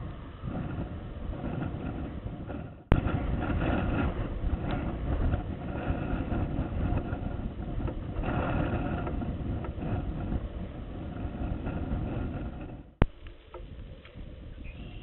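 Steady rough outdoor background rumble and hiss. Two sharp clicks come after sudden drops in level, one about three seconds in and one near the end.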